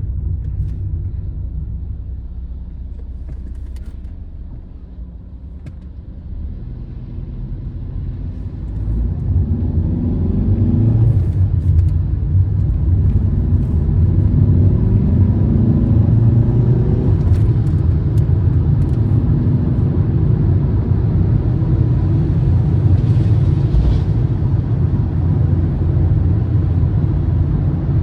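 Car engine and road noise while driving. The engine and tyre rumble eases off for a few seconds, then the car accelerates about nine seconds in, with the engine note rising for several seconds before settling into a steady cruise.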